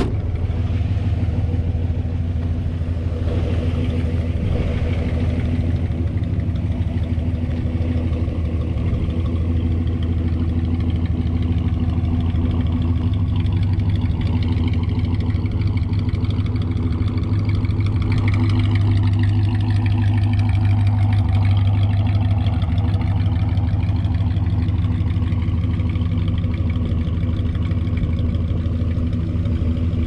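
1957 Ford Thunderbird's V8 engine running steadily with a low, even rumble, getting a little louder a bit past the middle.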